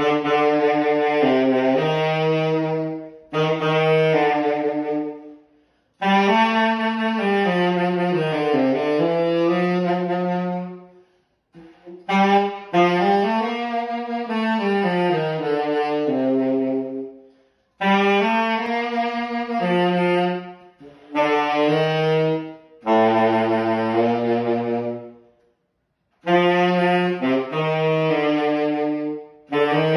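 Tenor saxophone playing a slow unaccompanied melody, one line at a time, in phrases of a few seconds with short breath pauses between them. Some notes slide smoothly up and down in pitch, and near the end it drops to a low note before climbing again.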